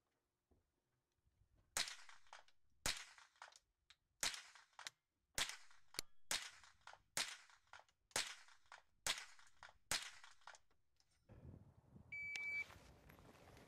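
A string of about ten shots from a .22 rimfire mini rifle, fired at roughly one a second. Each crack has a short echo tail. Near the end there is rustling movement and a brief beep.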